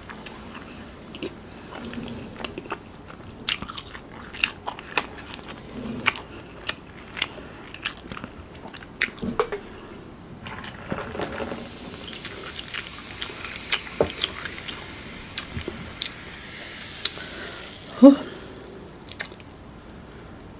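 Close-miked eating of Chinese takeout food: chewing and biting, with many wet mouth clicks and smacks. About halfway through, canned soda is poured into a glass and fizzes for several seconds.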